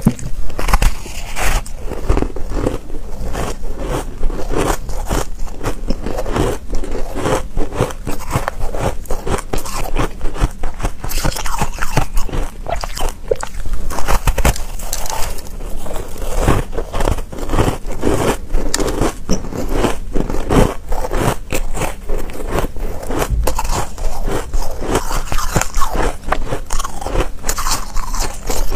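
Bites and chewing of a layered, frosty ice bar: a dense, irregular run of crisp crunches that goes on without a break.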